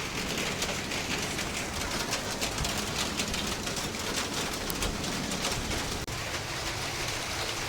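Steady rain falling, with many drops ticking on hard surfaces.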